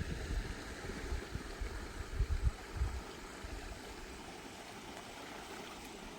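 Creek water flowing with a steady rushing hiss, with low buffeting thumps on the microphone during the first three seconds.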